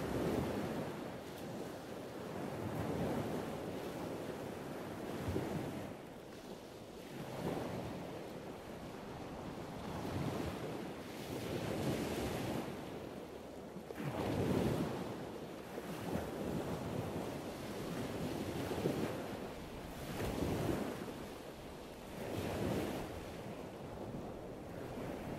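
Wind buffeting the microphone: a rushing noise that swells and fades every two to three seconds.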